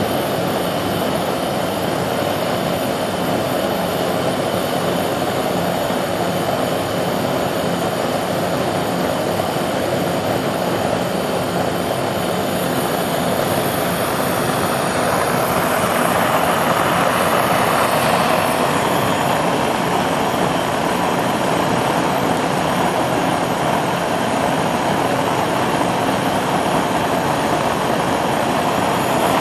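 Gas burner flame burning steadily with an even rushing noise, getting slightly louder about halfway through.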